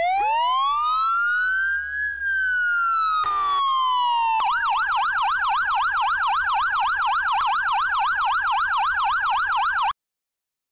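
Electronic emergency siren: one slow wail rising and then falling, switching about four and a half seconds in to a fast yelp of about four sweeps a second, which cuts off suddenly near the end.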